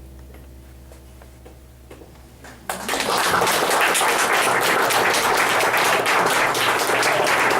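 The last of the band's music fades away quietly, then about a third of the way in an audience breaks into loud, sustained applause and clapping.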